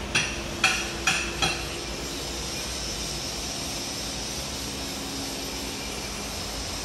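Four quick, sharp metallic knocks in the first second and a half, then a steady mechanical hum and hiss of workshop background noise.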